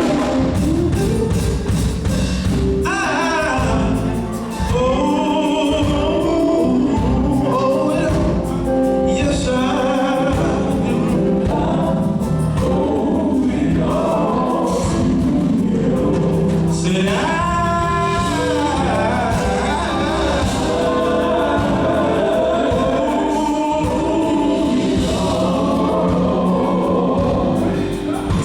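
Live gospel music: a male gospel group singing with band accompaniment, a lead voice bending and sliding over the backing.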